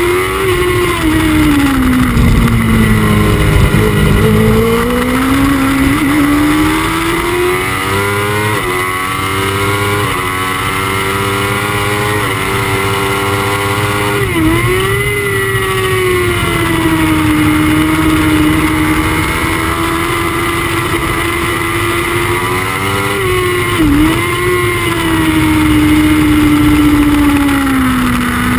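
Honda CBR1000RR inline-four racing engine at speed, heard from on the bike. Its note drops about two to four seconds in and climbs back, dips sharply and briefly twice, about 14 and 24 seconds in, and falls again near the end.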